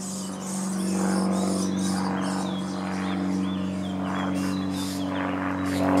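Common starling nestlings begging from inside a tree-hole nest: a rapid run of high, raspy calls repeated a few times a second, with short chirps. A steady low engine hum runs under them and is the loudest sound.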